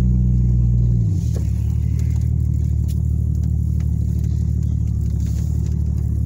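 Off-road vehicle's engine, heard from inside the cab, held at raised revs and then dropping back to a lower steady run about a second in as it creeps along.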